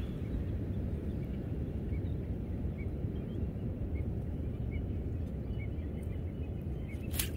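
Outdoor lagoon-shore ambience: a steady low rumble with faint, short bird chirps repeating throughout. Two sharp, loud sounds come near the end.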